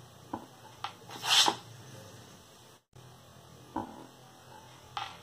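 A short hiss from an aerosol can of shaving foam as its nozzle is pressed, about a second in, with a few faint clicks and a low steady hum.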